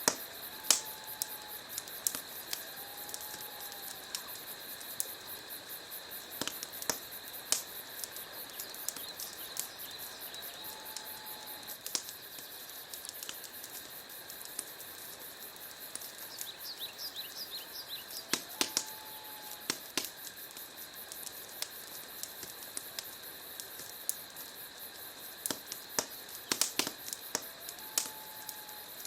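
Wood fire burning in a fireplace: irregular crackles and sharp pops over a steady hiss, a few pops louder than the rest. Faint short chirp-like tones recur every several seconds in the background.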